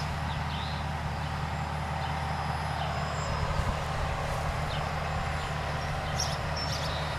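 A steady low mechanical hum, like a distant motor or engine running, with a few faint bird chirps about six seconds in.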